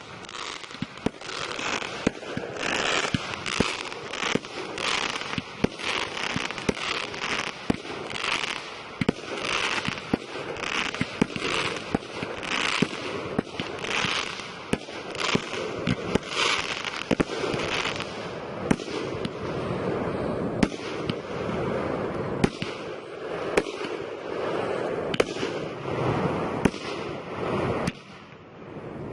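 Fireworks display: a dense, continuous string of sharp bangs from bursting shells, with hissing, crackling bursts about once a second, easing briefly near the end.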